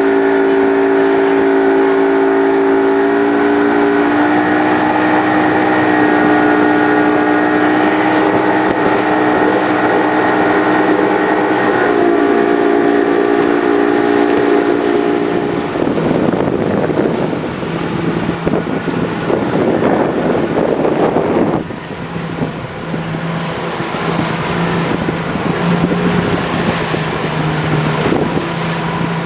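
Motorboat engine running steadily at speed under the load of towing a water skier, its pitch stepping slightly a few times. About halfway through the engine tone gives way to wind and rushing water, with a lower steady engine hum under it near the end.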